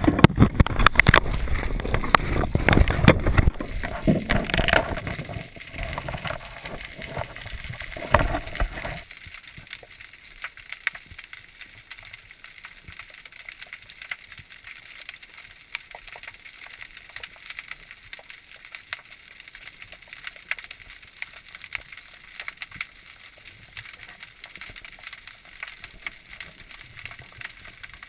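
Water splashing and rushing around a camera as it is taken underwater, loud for about the first nine seconds, then the quieter underwater hush with many faint, scattered clicks and crackles.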